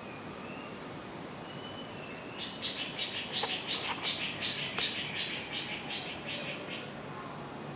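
A bird giving a rapid run of about fifteen chirps, a few a second, starting about two seconds in and stopping near the end, with faint whistled notes before it. Underneath is a steady hiss, plausibly the ceiling fan running.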